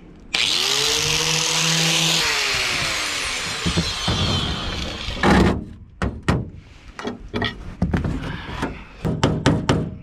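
Corded angle grinder spinning up and grinding on the rivets of an aluminum boat's bench seat, its motor pitch rising at the start and winding down after a couple of seconds. It is followed by a run of sharp hammer knocks on a flathead driving out rivets.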